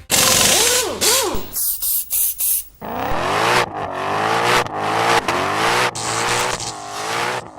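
Car engine revving hard, its pitch rising and falling again and again, with a few sharp bangs about two seconds in.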